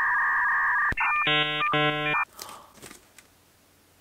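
Electronic sound effect added in editing, going with a loading-spinner graphic: a steady two-tone beep for about a second, a click, then a buzzy electronic tone pattern that stops sharply a little over two seconds in.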